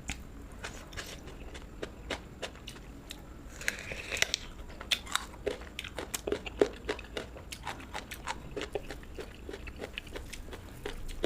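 Close-miked eating: a person biting into and chewing crunchy food, a run of sharp crisp crunches with a denser crunch about four seconds in.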